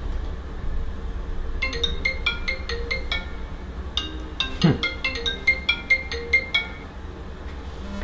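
Smartphone ringtone for an incoming call: a quick melody of short, bright, marimba-like notes, played twice with a brief pause between. Partway through the second phrase a deep downward swoop cuts across it.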